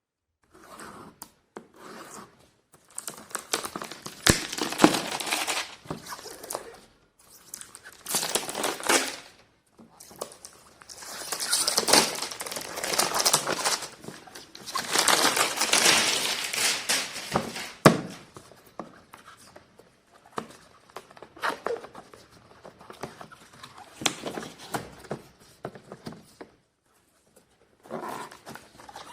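Packaging being handled while a portable vacuum cleaner is unboxed: crinkling and rustling in irregular bursts of a second or two, with a few sharp knocks.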